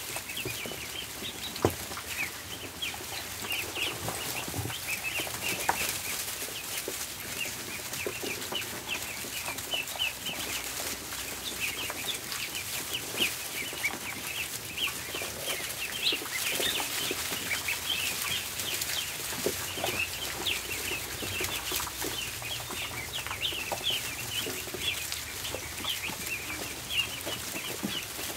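A crowd of ducklings peeping without pause, many short high peeps overlapping, with a few sharp taps now and then.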